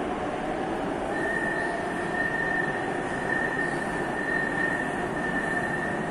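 Metro train running on the line, a steady rumble with a thin high-pitched whine that sets in about a second in and holds.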